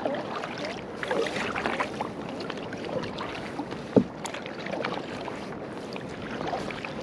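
Double-bladed kayak paddle strokes splashing and dripping water in an uneven rhythm, with one sharp knock just before four seconds in.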